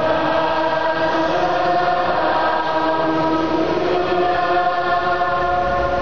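Choir singing a slow liturgical chant in long held notes, with one note held steady underneath throughout.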